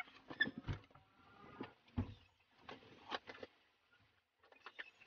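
A person getting off a bed and moving about a small room: scattered knocks, thumps and rustles.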